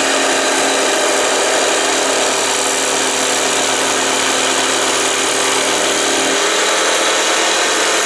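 Rockwell BladeRunner tabletop saw running, its reciprocating T-shank jigsaw blade cutting through a thick wooden block. A steady, loud motor-and-blade noise; the lowest hum drops away about six seconds in.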